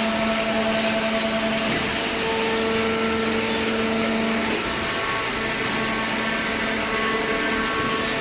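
A machine engine running steadily, with several humming tones over a broad noise that shift about halfway through.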